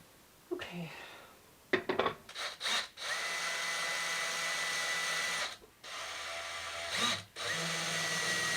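A power drill runs steadily with a constant whine for about two and a half seconds, after a few knocks. It stops, runs softly for a moment, then runs again near the end, as when driving screws.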